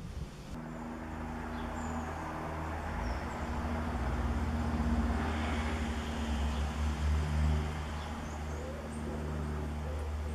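A steady low mechanical hum, like an engine running, with a few faint bird chirps and calls over it.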